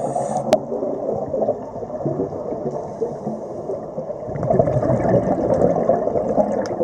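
Muffled underwater rumble and bubbling of scuba exhaust bubbles, heard through an underwater camera housing, growing louder in a swell about four and a half seconds in. A single sharp click about half a second in.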